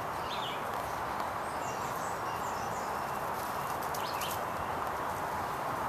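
Steady outdoor background noise, with a couple of faint bird chirps about half a second in and again around four seconds in.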